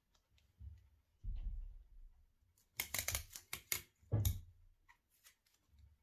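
Small piece of paper being folded and creased between the fingers: a soft bump, then a quick run of crisp crackles about three seconds in and one more just after.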